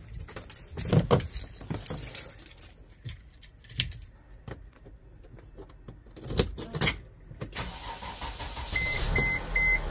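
Knocks, clicks and key jangling as someone gets into a Mercedes Sprinter van, with a louder pair of thumps about six and a half seconds in. Near the end the ignition is switched on, and the dashboard warning chime beeps about three times a second over a rising low rumble.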